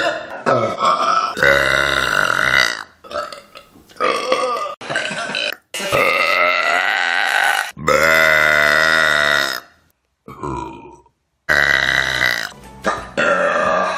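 A string of human burps, one after another, most lasting one to two seconds, the longest about two seconds with a wavering pitch, followed by several shorter ones near the end.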